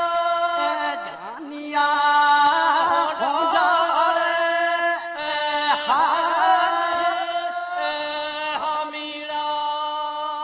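Rabari devotional singing (a regadi): a voice singing wavering, ornamented lines over a steady held drone.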